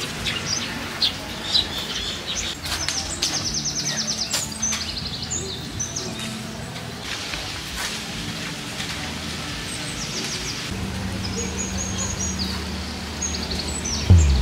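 Small birds chirping, with several rapid high trills, over a low steady hum that comes in during the second half. A rooster starts to crow right at the end.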